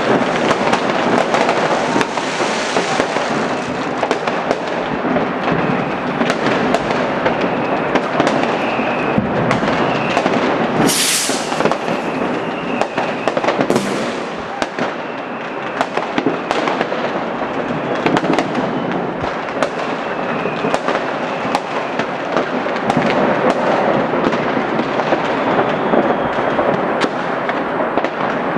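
New Year's fireworks and firecrackers going off all around without a pause: a dense crackle broken by many sharp bangs, with a loud hissing burst about eleven seconds in and a shorter one a few seconds later.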